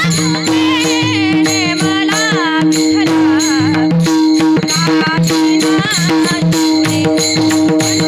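Varkari kirtan music: a woman sings an ornamented devotional melody over a steady held drone, with pakhawaj drum strokes and small hand cymbals (taal) keeping a regular beat.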